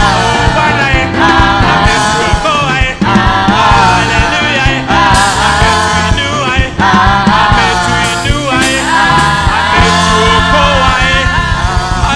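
Live gospel praise song sung in Swahili by a group of singers over a band with keyboard and drum kit, with a steady beat.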